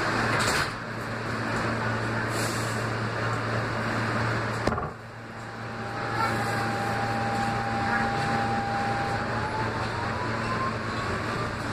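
R160 subway car running through a tunnel, heard from inside the front car: a steady rumble and hum, a sharp knock about five seconds in, then a steady whine from the AC traction motors that rises in pitch near the end as the train picks up speed.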